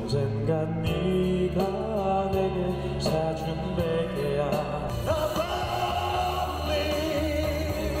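A street singer singing a melody into a microphone over a backing track, played through small portable Cube amplifiers.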